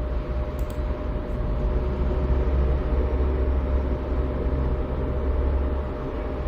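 Cooling fans of a small PC case running steadily while its Intel Xeon E3-1245 v3 is under a full-load FPU stress test: a constant whir with a low rumble and a steady hum tone.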